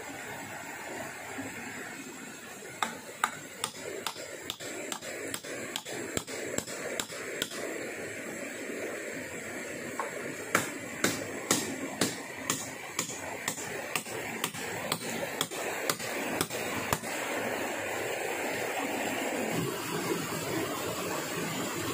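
Repeated sharp blows of a hand tool striking wood, about two a second in two runs with a short pause between, stopping about three-quarters of the way through, over a steady background hiss.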